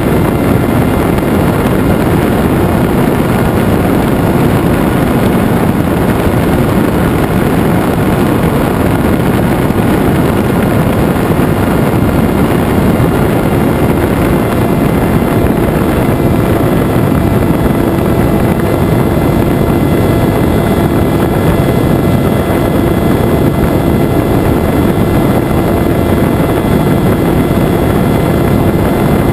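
Electric motor and pusher propeller of a Venturi FPV flying wing running steadily in flight, heard from a camera mounted on the plane. A steady whine sits over loud wind rush.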